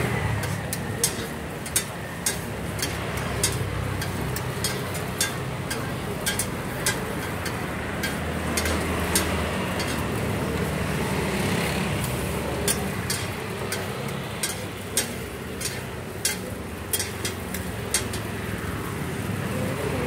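Metal spatulas clacking and scraping on a flat steel griddle as meat is chopped and turned. The sharp clicks come irregularly, about one or two a second, over a steady low rumble.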